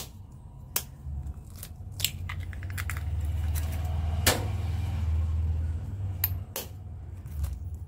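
Eggs being tapped and cracked on the rim of a plastic mixing bowl: several sharp knocks, the loudest about four seconds in, over a low rumble.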